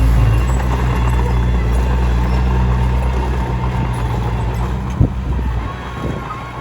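Komatsu D21P bulldozer's diesel engine running steadily under work, with a thin steady whine over it. A single sharp knock comes about five seconds in, and the engine note drops back near the end.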